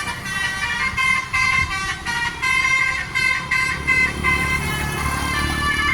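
Basuri telolet bus horn playing a melody: a quick run of short horn notes changing pitch several times a second, over a low rumble.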